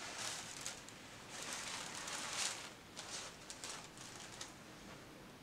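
Tissue paper and the fabric of an 1860s bodice rustling and crinkling as hands unfold and spread the garment, in several irregular bursts, the longest about one and a half to two and a half seconds in.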